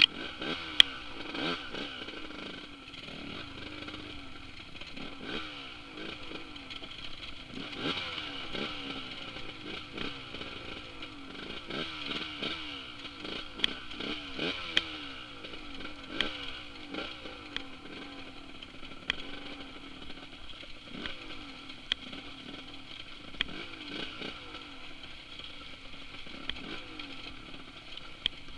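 Dirt bike engine riding a trail, revved up and eased off again and again so its pitch keeps rising and falling, with sharp clicks and clatter now and then.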